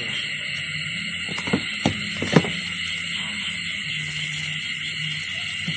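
Dense, steady chorus of night insects, high-pitched. A low steady hum runs underneath, and a few short clicks come between about one and a half and two and a half seconds in.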